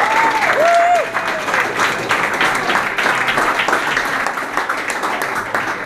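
A crowd in a hall applauding steadily, with a couple of whooping cheers in the first second or so. The clapping thins out near the end.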